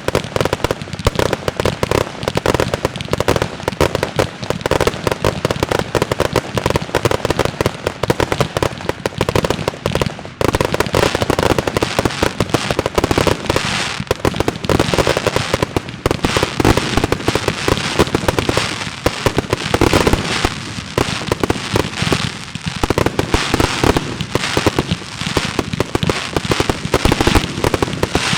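Fireworks going off in a dense, continuous barrage of rapid bangs and crackles, with a brief dip about ten seconds in.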